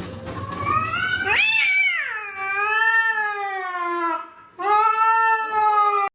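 A cat giving two long, drawn-out meows: the first rises and then slides slowly down in pitch over about four seconds, and the second is shorter and steadier.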